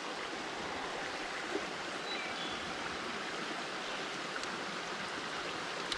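Steady rushing of a small mountain creek running over shallow riffles and rocks.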